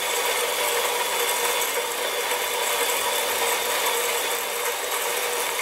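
Quick Mill Apollo electric espresso grinder running steadily, grinding coffee beans into a portafilter in its timed electronic mode.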